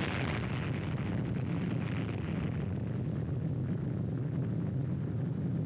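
Atomic bomb blast sound on a film soundtrack: a continuous deep rumble, with a hissing top that dies away over the first couple of seconds.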